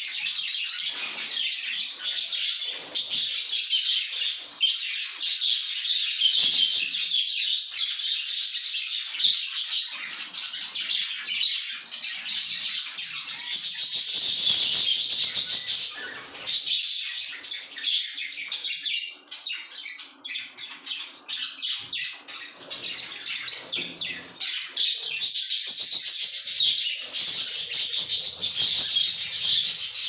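A flock of budgerigars chattering, a dense, continuous mass of high warbling chirps from many birds at once, swelling louder around the middle and again near the end.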